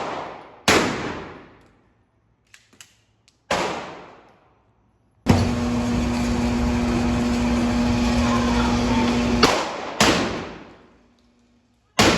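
Single gunshots, four of them spaced a few seconds apart, each followed by a long echoing decay. Between the second and third shot a loud, flat, steady tone with a low hum runs for about four seconds and then stops.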